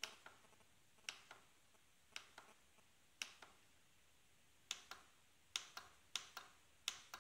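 Faint push-button clicks on a Walkera Devo 7E radio transmitter as its menu is stepped through to select a model profile. The clicks come singly or in quick pairs about once a second, growing more frequent near the end.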